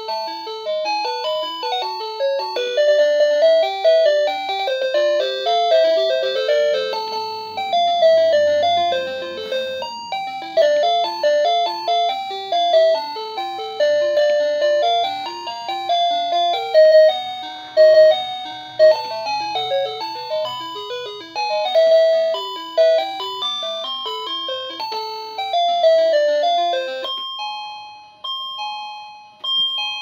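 Sanking BE-053A wireless doorbell receiver playing one of its stored electronic chime melodies, a quick tune of many clean notes. About three seconds before the end the tune cuts off and a different, bell-like chime with sustained tones starts.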